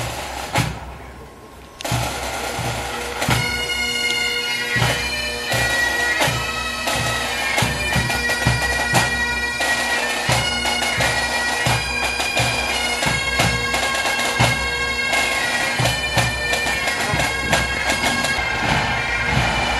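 Pipe band playing: bagpipes sound a melody over their steady drones, with a regular drum beat underneath. The music comes in much louder about two seconds in.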